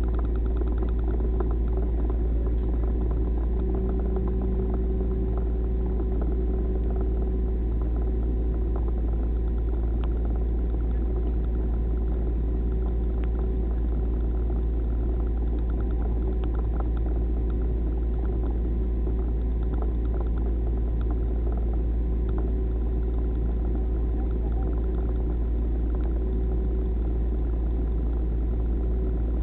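A vehicle engine idling steadily, a deep even rumble that holds unchanged throughout.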